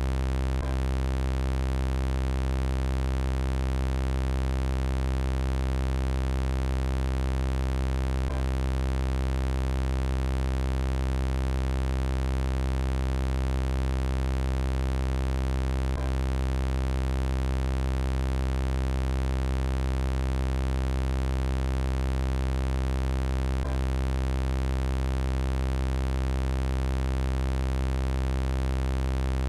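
Synthesized robot-voice effect holding one steady electronic buzzing drone, low-pitched and unvarying. A faint click comes about every eight seconds.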